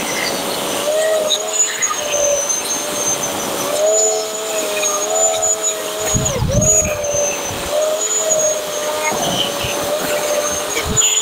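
Bosch AKE 35 electric chainsaw running with its chain cutting into a deadwood trunk: a steady motor whine that sags briefly under load about six and a half seconds in, then picks up again.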